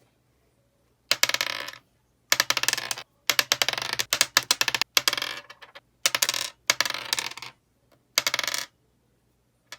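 Pink slime being squished and pressed, giving bursts of dense crackling clicks and pops, about seven bursts of half a second to a second each with short pauses between.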